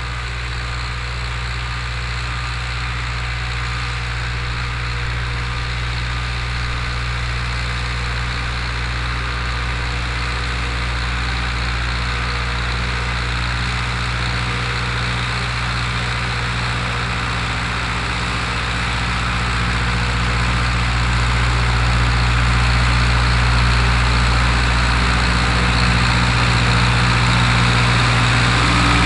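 Long 900 (Zetor 8011) tractor's diesel engine running steadily, growing louder over the last ten seconds.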